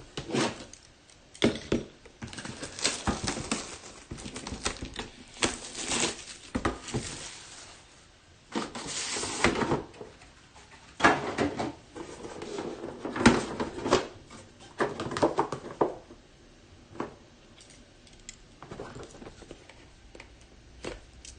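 A knife scraping, tapping and sawing at the sealed packaging of a trading card box, in irregular clicks, scrapes and rustles, with a longer scrape about nine seconds in. The blade is dull and is not getting through the seal.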